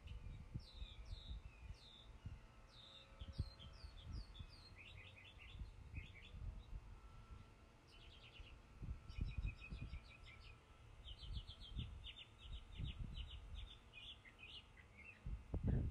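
Small songbirds chirping and singing, with several quick runs of sharp high notes, over low rumbles of wind on the microphone.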